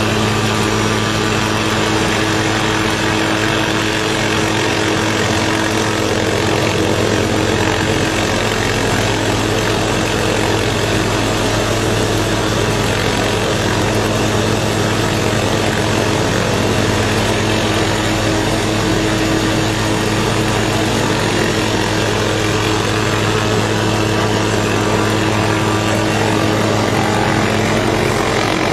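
MD 500-type light helicopter hovering: a steady rotor and engine drone with a constant low hum that does not change.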